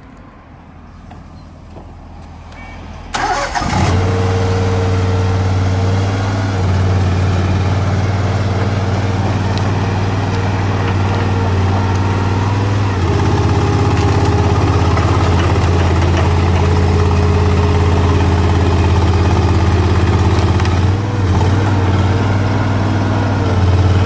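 Engine of a tracked pick-and-carry crawler crane starting about three seconds in, then running steadily at a low, even note that shifts a couple of times.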